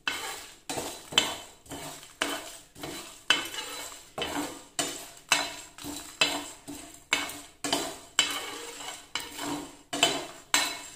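Metal spatula scraping and stirring whole spices and dried red chillies in a dry non-stick pan, about two strokes a second, the seeds rattling against the pan as they dry-roast with no oil.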